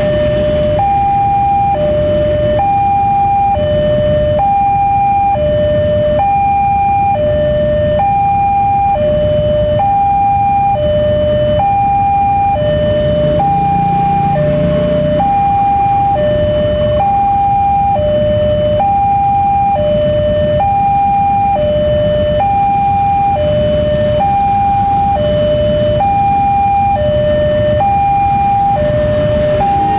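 Railway level-crossing warning alarm sounding continuously, an electronic two-tone signal alternating high and low about once a second, warning that a train is approaching. Beneath it is the low running of many idling motorcycle engines.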